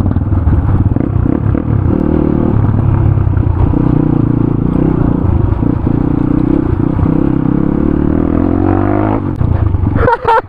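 Single-cylinder motorcycle engine running under way on a rough off-road track, with rattling from the bike. The engine note climbs near the end, then drops away.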